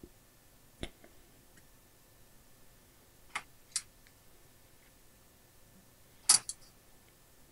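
A few sharp small clicks and taps, spaced out, the loudest pair about six seconds in. They come from handling the pinch roller assembly and a screwdriver while bending the pinch roller's pressure spring to reduce its pressure.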